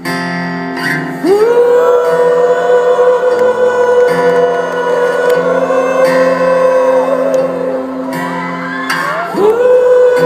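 Live rock music in a large hall: a long sung note swoops up about a second in and is held for several seconds, and a second swooping note rises near the end, over sustained band backing.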